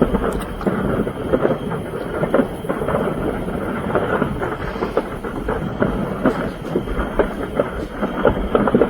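A large fire burning with dense, irregular crackling and small popping bursts.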